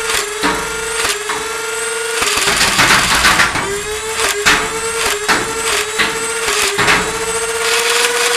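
Overvolted Nerf Elite Rapidstrike's flywheel motors spinning with a steady whine, dipping each time a foam dart is fired. Single shots are followed by a quick full-auto burst about two to three and a half seconds in, then more single shots as the magazine empties.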